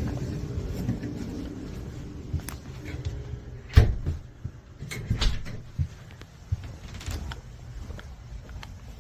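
Movement and handling noises: a few scattered knocks and clicks, the loudest about four seconds in, over a low hum that fades during the first couple of seconds.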